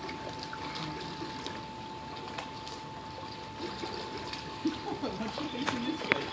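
Swimming-pool water splashing and trickling, steady throughout, with a few short faint vocal sounds and a sharp click near the end.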